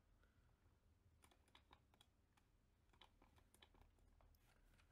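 Near silence with faint, scattered clicks of a computer keyboard and mouse.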